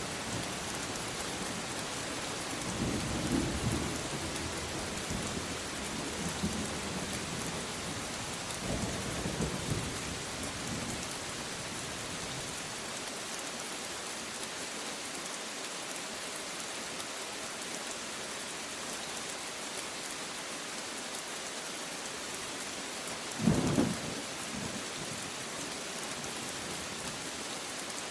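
Steady heavy rain hissing throughout, with low rolling thunder rumbling on and off through the first third. About three-quarters of the way through comes a short, loud thunderclap, the loudest sound here.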